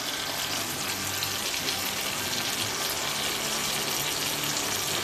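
Masala-coated rohu fish pieces shallow-frying in oil in a pan, giving a steady, even sizzle.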